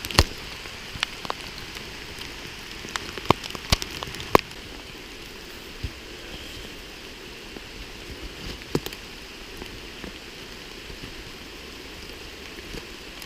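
Steady rain falling in a forest, with scattered sharp taps and clicks close by, the loudest at the start and a few in the first half.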